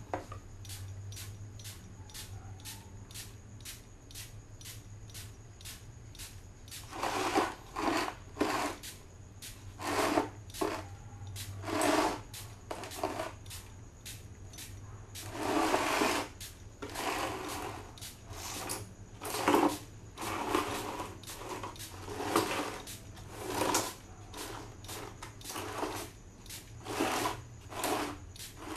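Hand trigger spray bottle squeezed over and over, each pull giving a short hiss of spray onto a plastic hard hat. Light quick spritzes, three or four a second, for the first several seconds, then louder, fuller squirts about one or two a second.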